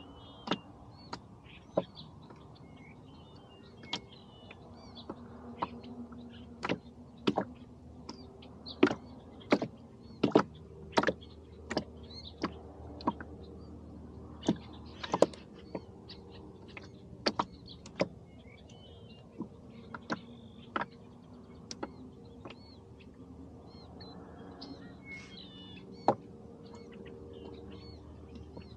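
Irregular sharp knocks and clicks, several of them clearly louder than the rest, over a steady low background. Small birds chirp and twitter faintly throughout.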